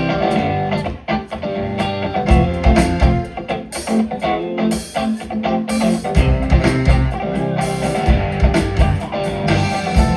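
A rock band playing live, with electric guitar over bass and drums; the drums hit harder from about six seconds in.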